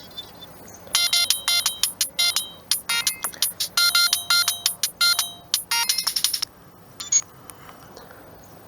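Siemens M65 mobile phone ringtone: a melody of short, quick electronic notes that stops suddenly about six and a half seconds in, followed by one brief note.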